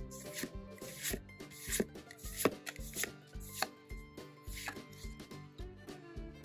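Pokémon trading cards being flicked and slid one behind another in the hand, giving crisp snaps and rubs, over background music with a steady beat.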